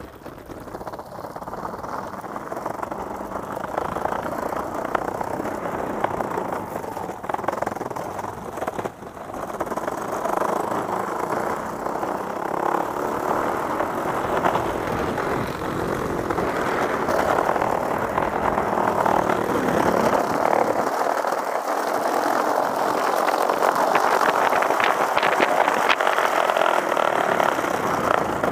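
Longboard wheels rolling over brick paving: a continuous rough rumble that grows louder toward the end, with a few small clicks near the end.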